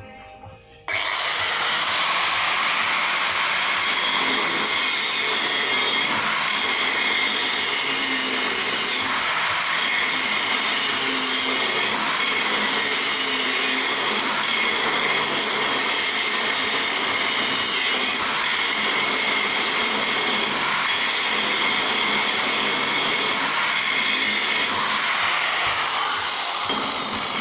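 Loud, steady mechanical grinding noise with several high steady tones, starting abruptly about a second in.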